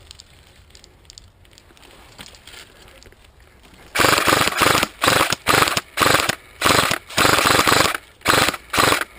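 Airsoft electric rifle firing about ten short, loud bursts close by, starting about four seconds in after a quiet stretch.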